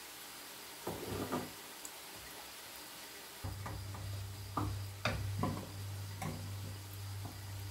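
A utensil knocking and scraping in a pan of frying sirken (goosefoot) greens and onion as they are stirred, with a few sharp knocks about a second in and several more in the second half. A low steady hum sets in about three and a half seconds in.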